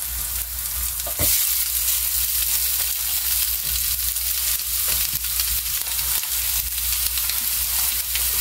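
Breakfast sausage patties sizzling in an electric skillet, a steady hissing fry. About a second in there is a soft knock as another raw patty is laid into the pan, and the sizzle grows a little louder after it.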